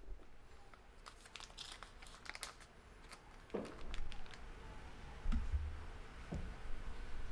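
Paper tulip cupcake liner crinkling and tearing as it is peeled off a baked muffin, a dense run of crackles with a few dull bumps from handling in the second half.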